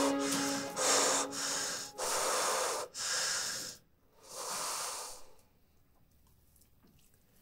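A man breathing deeply and audibly through the mouth: about five long breaths in and out, one after another, then silence about five seconds in. A held music chord fades out under the first breaths.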